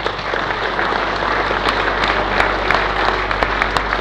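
A room full of people applauding: dense clapping with sharp individual claps standing out.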